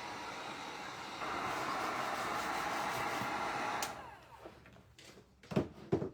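Handheld electric dryer blowing steadily, getting louder about a second in, then switched off a little before four seconds in and winding down. A few sharp knocks follow near the end.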